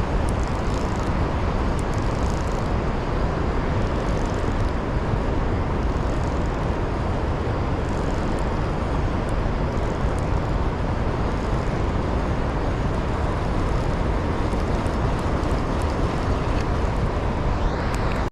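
Steady, loud rushing of water below a dam, an even roar heavy in the low end, cut off abruptly at the very end.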